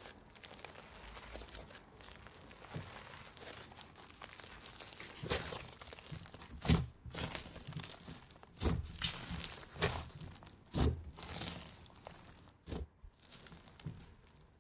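Fluffy slime squeezed and pressed by hand: a steady fine crackling of tiny air bubbles popping, with several louder pops from about five seconds in.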